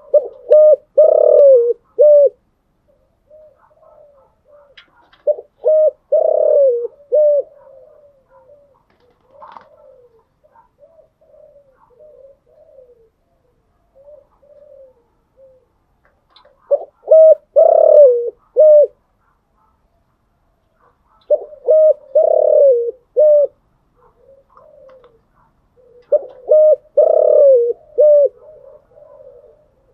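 Spotted dove cooing: five loud phrases of several low coo notes each, spaced a few seconds apart, with softer cooing in the gaps between them.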